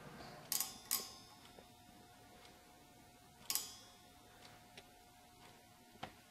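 Sparse sharp metallic clicks and light taps of an outside micrometer being set and adjusted against a crankshaft rod journal: two clicks about half a second and one second in, another about three and a half seconds in and one near the end, with fainter ticks between.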